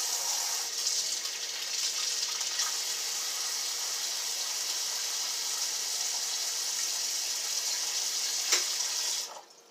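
Kitchen sink faucet running in a steady stream, with a brief knock shortly before the water stops abruptly near the end.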